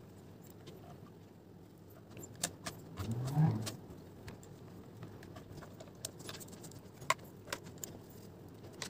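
Small screws and a screwdriver clicking and ticking faintly as the screws of a dart blaster's gearbox shell are driven back in, with a louder handling bump about three seconds in.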